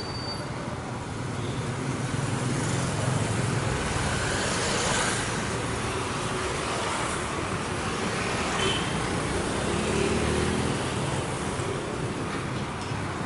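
Street traffic: motor vehicles passing on the road, a steady wash of engine and tyre noise that swells as each one goes by, with one engine note rising about eight seconds in.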